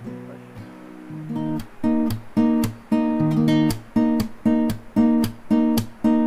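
Background music of a strummed guitar: chords struck in a steady rhythm, about three a second, soft for the first second and a half and then louder.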